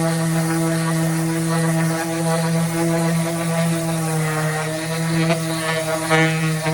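Electric orbital sander with a round 220-grit disc running on wood: a steady motor hum, with rougher scratching of the sanding pad on the surface growing from about four seconds in.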